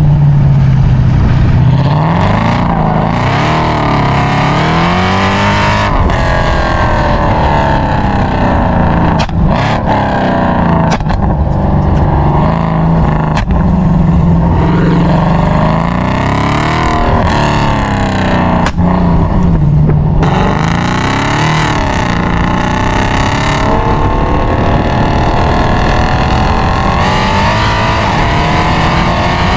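Mercedes C63 AMG's 6.2-litre naturally aspirated V8, run catless on long-tube headers, heard from behind at the exhaust, with the revs rising and falling over and over. Several sharp exhaust pops come through the middle part, and over the last several seconds the revs climb steadily.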